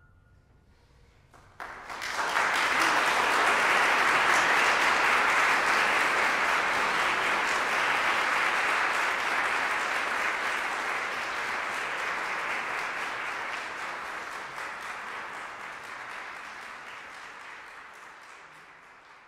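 Audience applauding after a brief pause, starting about two seconds in, then slowly dying away.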